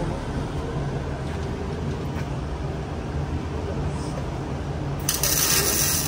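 Steady low shop hum, then about five seconds in a loud hiss of compressed air from a mechanic's pneumatic tool under the car, lasting about two seconds and stopping sharply.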